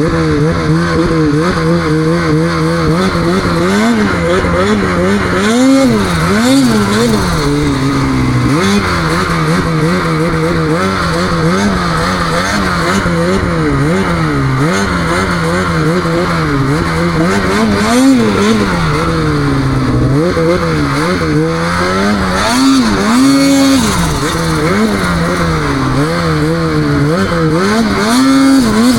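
Snowmobile engine being ridden hard, revving up and dropping back over and over, its pitch rising and falling every second or two.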